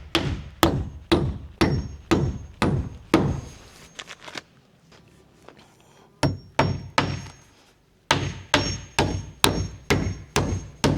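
Hammer driving nails into a plywood wall sheet, sharp blows about two a second. A pause of two or three seconds comes in the middle, then the hammering resumes, a little quicker near the end.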